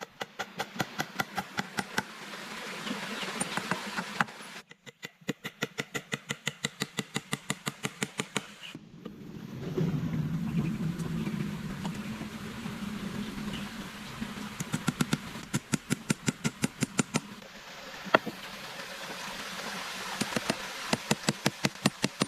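Rapid, even strokes, about five or six a second, in several stretches separated by abrupt cuts, with a louder low, noisy stretch in the middle.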